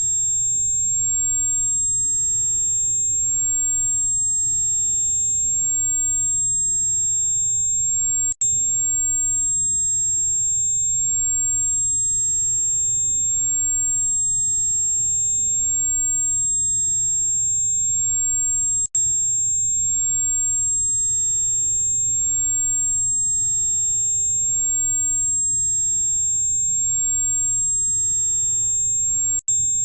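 A steady, high-pitched tinnitus-relief tone with fainter tones above and below it over a faint low hum. It breaks off for a split second three times, about every ten seconds.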